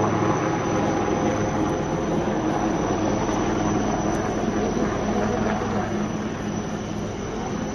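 Helicopter running steadily: a continuous engine drone with a steady low hum, easing slightly toward the end.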